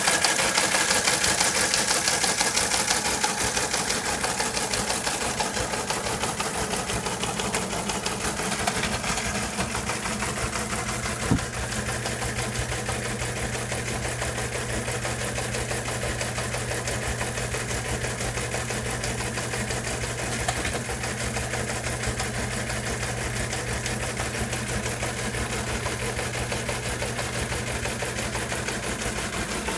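Teletype Model 15 page printer clattering steadily as it prints incoming radioteletype text, its motor running underneath. A single sharp knock comes about eleven seconds in, and a steady low hum sets in just after it.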